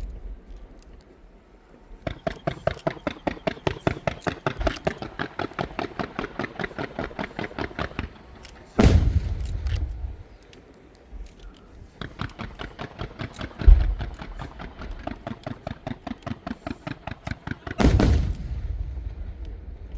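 Aerial fireworks: long rapid strings of crackling pops, several a second, broken by three heavy booms of bursting shells about four seconds apart, each followed by a low rumble.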